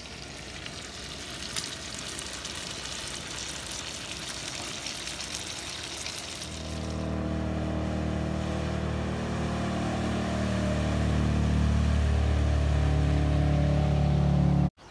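A crackling sizzle for about the first six seconds, then a speedboat's engine running at speed as it passes, growing steadily louder before cutting off abruptly near the end.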